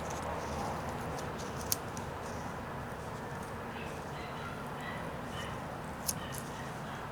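Carving knife shaving a small piece of wood by hand: three sharp snicks of the blade spaced a few seconds apart over a steady background hiss.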